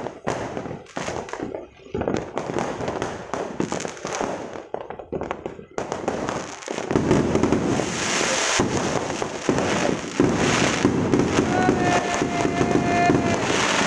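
Aerial fireworks bursting: separate sharp bangs and crackles at first, then from about halfway through a dense barrage of many shells going off at once.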